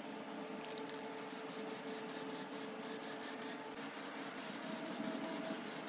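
Filler primer spraying from an aerosol can in a steady hiss.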